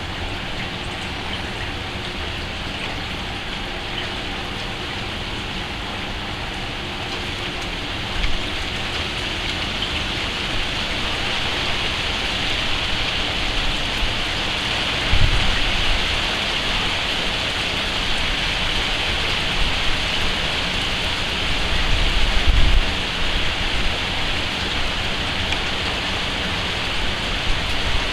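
Steady rain falling, a constant hiss that grows a little heavier. A few short low rumbles come through about a third, halfway and three quarters of the way in.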